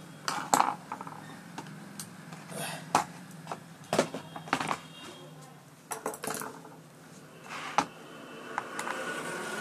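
Scattered clicks and knocks of an induction cooker's glass top panel and plastic housing being lifted apart and handled, about half a dozen sharp knocks in all.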